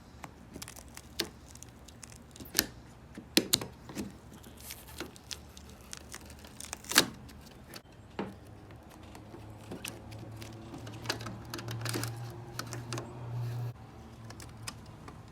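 Scattered clicks, taps and knocks of small metal tools and parts being handled, with a low steady hum from about ten seconds in until near fourteen.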